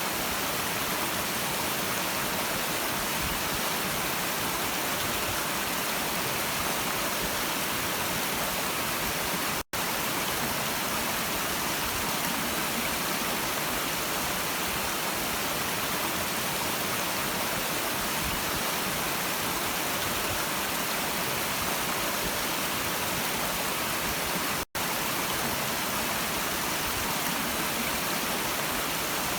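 A brook running steadily, a continuous hissing rush of water with most of its energy in the high range. The sound cuts out completely for an instant twice, about a third of the way in and again near the end.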